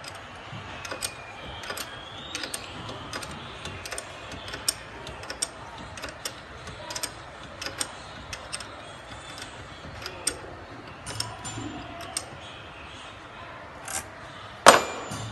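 Light, irregular metallic clicks and clinks as a small metal fitting on an air compressor's pressure-switch block is handled and turned by hand, with one louder sharp click about a second before the end.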